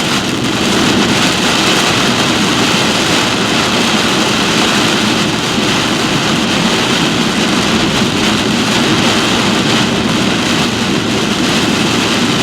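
Heavy rain and wind rushing against a vehicle, mixed with its road and engine noise, a loud steady roar with no separate hits.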